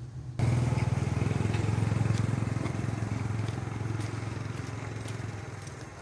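A vehicle engine running with a fast, even pulse. It cuts in suddenly about half a second in and slowly fades.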